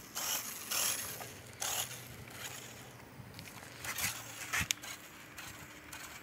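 Toy RC rock crawler's small electric motors and plastic gearboxes whirring in short, stop-start spurts as it is driven.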